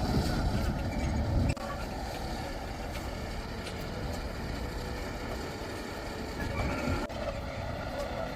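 Logging truck engine running with a heavy low rumble that cuts off abruptly about one and a half seconds in, then a quieter, steady engine hum.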